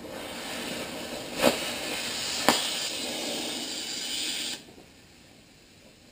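Gas cutting torch hissing as it cuts a rivet head off a steel truck frame's spring hanger, with two sharp pops a second apart. The hiss drops abruptly to faint about four and a half seconds in.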